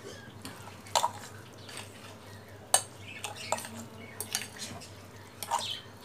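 A metal spoon stirring semolina and sour yogurt in a glass bowl, scraping and clinking against the glass at an uneven pace. A few sharper clinks stand out, the loudest near three seconds in.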